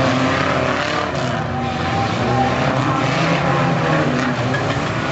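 Several pre-1976 banger racing cars' engines revving hard together as they race in a pack on a dirt track, many overlapping engine notes rising and falling.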